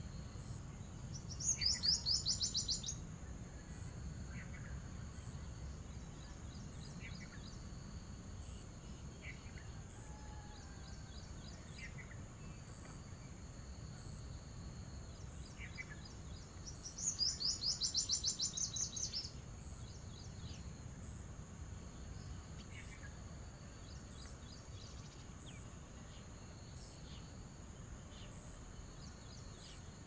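A bird sings two loud, rapid trills, one about a second and a half in and another about fifteen seconds later, with a few short faint chirps in between. Under them runs a steady high insect chirring that pulses about once a second.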